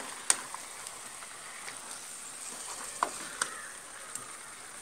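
Goat head pieces and masala frying in a pan with a faint, steady sizzle, and a few sharp clicks of the stirring utensil against the pan as they are mixed.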